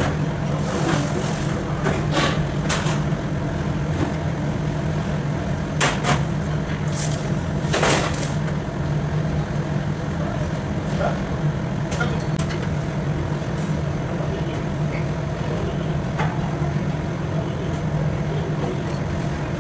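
A steady low mechanical hum, like an engine running nearby, with scattered sharp knocks and clicks, most of them in the first half.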